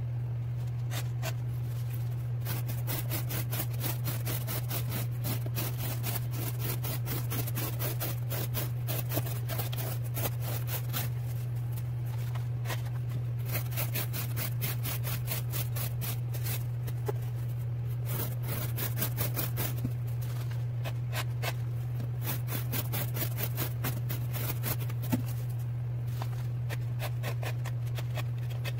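Steel Will Modus folding knife's M390 blade slicing cardboard, in rapid runs of short, crisp cuts, over a steady low hum.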